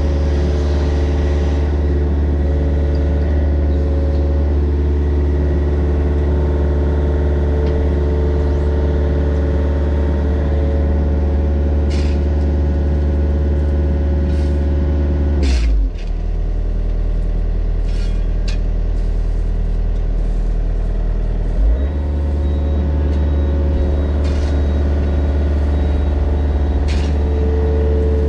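Mini excavator's diesel engine running steadily, heard up close. About halfway through its speed drops lower for about six seconds, then picks back up, with a few sharp knocks along the way.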